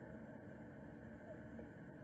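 Near silence: a faint, steady low hiss and rumble, with no distinct call or event.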